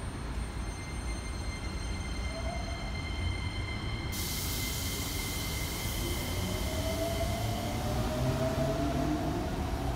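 Keikyu 1000 series stainless electric train pulling out of the station over a steady low rumble. A hiss starts suddenly about four seconds in. From about six seconds in the traction motors give a whine that slowly rises in pitch as the train accelerates.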